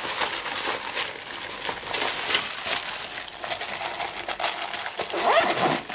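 A bag being handled: rustling and crinkling, a steady run of small crackles.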